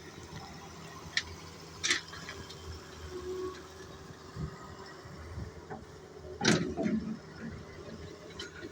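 Doosan excavator's diesel engine running steadily while the machine loads onto a trailer, with a few sharp metallic clanks, the loudest about six and a half seconds in.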